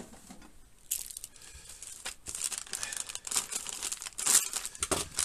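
Packaging crinkling and being torn open by hand, starting about a second in and growing busier and louder toward the end.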